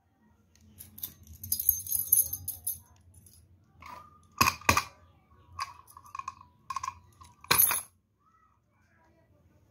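A small metal padlock and key being handled: a high jingling rattle for about two seconds, then a handful of sharp metallic clicks and clinks with a brief ring. The last click, near the end, is among the loudest.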